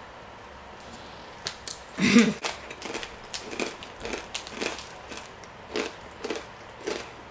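A person chewing a snack close to the microphone: irregular small clicks and wet mouth noises, with a short low voiced sound about two seconds in.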